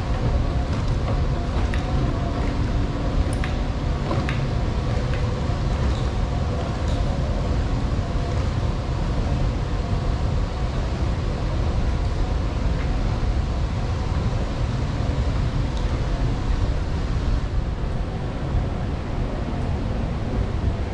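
Long subway-station escalator running: a steady low mechanical rumble with a faint hum, and a few light clicks in the first five seconds.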